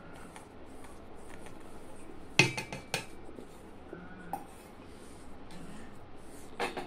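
Stainless steel cup and wire whisk knocking against a steel mixing pot as flour is tipped into cake batter. There are two sharp clanks close together about two and a half seconds in, then lighter knocks.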